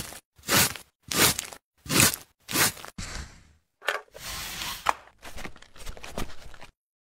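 A metal hand grater rasping in about four even strokes, a little under two a second, stopping about three seconds in. Then a softer scraping slide and a few light knocks, as of a wooden board moved across a surface.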